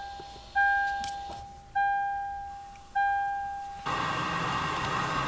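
A car's dashboard warning chime dings three times, about 1.2 seconds apart, each a single bell-like tone that fades away. About four seconds in, the chime stops and the Boss BV760B head unit's FM radio comes on with steady static hiss from an untuned frequency.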